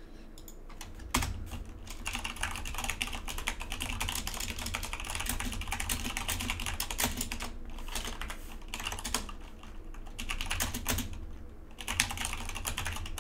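Typing on a computer keyboard: quick, uneven runs of key clicks starting about a second in, with short pauses around the middle and again near the end.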